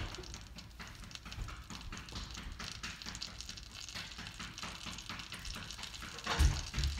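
Butter melting and sizzling softly in a hot frying pan, a fine crackle of tiny pops. A couple of dull low thumps come near the end.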